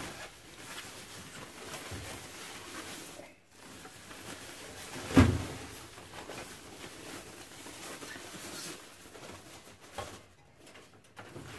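A thin plastic bag rustling as it is pulled off a toaster by hand, with a single sharp knock about five seconds in.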